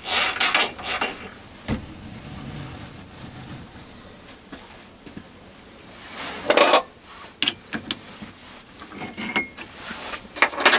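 Metal handling sounds as a steel shaft is loosened and lifted out of a lathe chuck: scattered scrapes, knocks and clicks, with a few short ringing metallic clinks in the second half.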